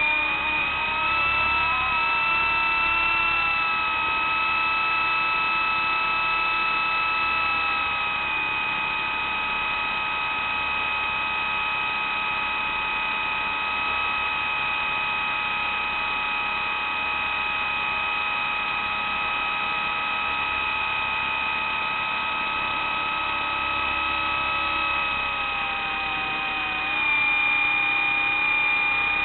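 Radio-controlled helicopter running steadily in flight, a high mechanical whine of motor and rotors. The pitch shifts slightly near the start and again near the end.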